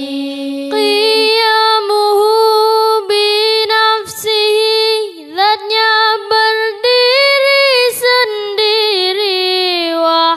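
A high solo voice singing a long, drawn-out melismatic passage of an Islamic devotional song, holding notes and bending them up and down in ornamented turns, with short breaks between phrases.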